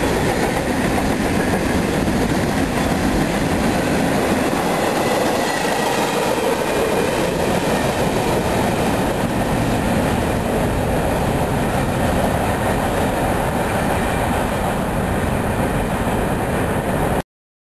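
Freight train cars rolling by on the rails: a steady rumbling, rattling noise that stays just as loud throughout and cuts off suddenly near the end.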